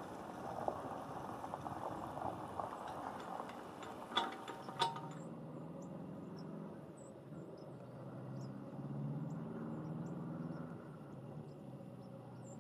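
Chairlift chair and haul rope running over a lift tower's sheave wheels: a rattling clatter with two sharp clanks about four to five seconds in, then a lower steady rumble from the moving cable.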